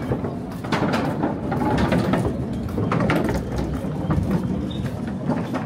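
Footsteps on a footbridge's plank deck, heard as irregular clicks and knocks over a steady low rumble.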